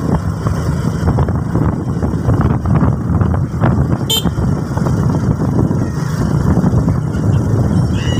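Steady low rumble of a moving vehicle's engine and road noise, heard while riding along a road, with a brief high-pitched beep about four seconds in.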